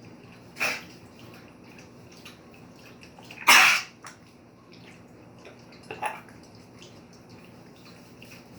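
Three short, breathy coughs about two and a half seconds apart, the middle one the loudest and longest.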